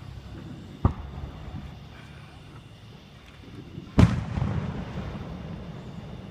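Two aerial fireworks shells bursting, a sharp bang about a second in and a louder one about three seconds later that trails off in a long echo.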